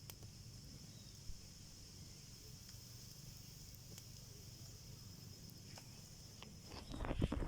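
Faint, steady high-pitched chirring of night insects in the background. Near the end a run of thumps and rustles comes in, louder than the chorus.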